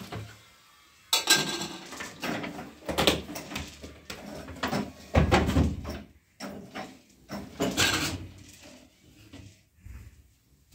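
A run of irregular knocks, bangs and clatter, like a door or household things being handled, loudest in the middle.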